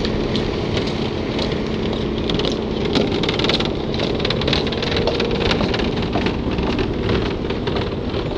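Wind buffeting a camcorder microphone outdoors: a loud, steady rumble with bursts of crackling, over a faint steady hum.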